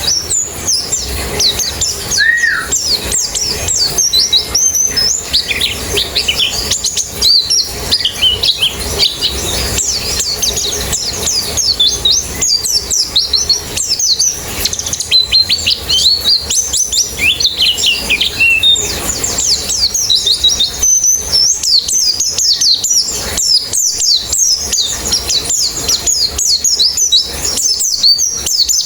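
A flock of white-eyes (pleci) singing together: many fast, high twittering chirps overlapping without a break.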